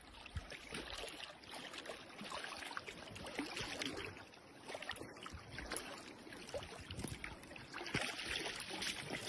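Shallow river water rippling over rocks, broken by irregular small splashes as a coho salmon thrashes through the shallows.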